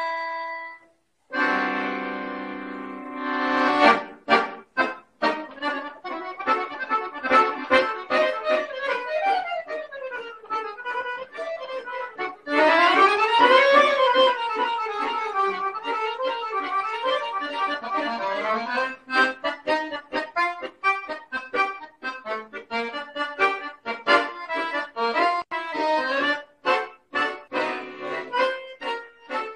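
Piano accordion played solo. It opens with held chords, runs fast up and down the scale in the middle, and goes on in short, detached notes and chords to near the end.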